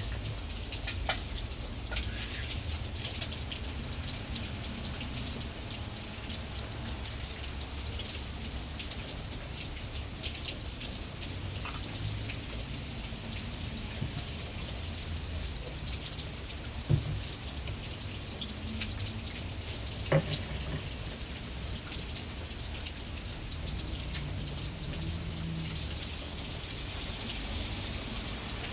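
Heavy rain falling steadily, with many small drop ticks on nearby surfaces. Two short, louder knocks come about 17 and 20 seconds in.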